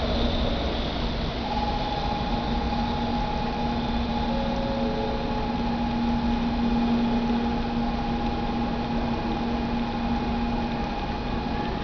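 A Shinkansen train pulling away from the platform and fading into a steady station hum with a few held tones.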